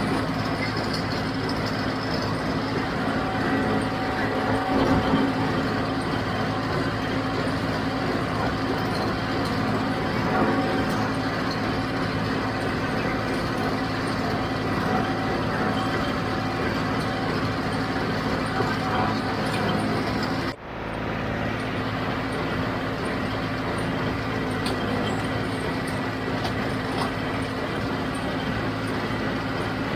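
John Deere 5055D tractor's three-cylinder diesel running steadily under load while driving a John Deere 348 square baler in the field. The sound cuts out for an instant about two-thirds of the way through, then resumes.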